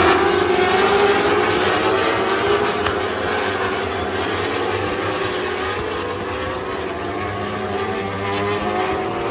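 A group of superbikes running at racing speed, their engines at high revs, the pitch climbing in the first seconds and then rising and falling as they shift and pass.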